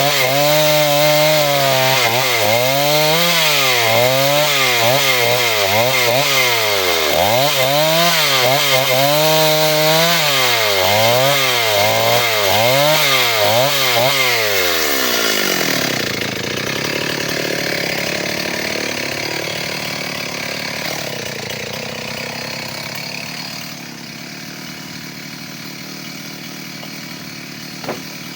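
Two-stroke chainsaw running at high speed, its pitch repeatedly dipping and climbing back as it works through wood. About halfway through, the engine winds down and drops out, leaving quieter background noise with a faint engine sound.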